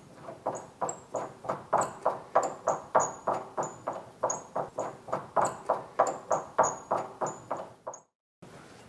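Rapid, even series of sharp taps, about three a second, each with a short high metallic ping; they build up, ease off and stop abruptly near the end.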